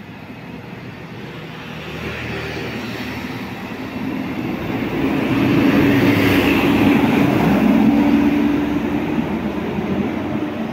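Zhongtong LCK6117H coach bus driving past close by: its diesel engine and tyres build as it approaches, are loudest as it passes about six seconds in, then fade as it pulls away.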